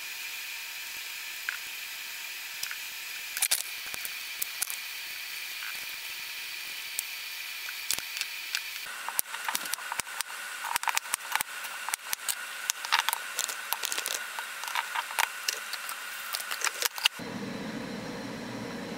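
A vegetable peeler scraping the skin off a potato, with only faint occasional clicks over a steady hiss. From about nine seconds in, a kitchen knife chopping peeled potatoes on a plastic cutting board: a run of sharp, irregular knocks. Near the end the sound cuts to a steady low hum.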